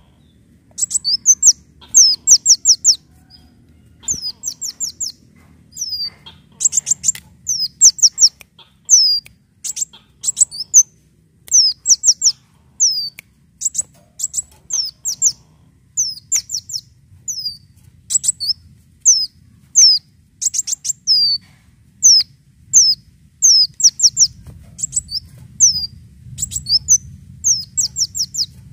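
Sunbird known to Indonesian bird keepers as 'kolibri daun' singing. Its song is quick runs of three to five thin, high, down-slurred notes, repeated every second or two.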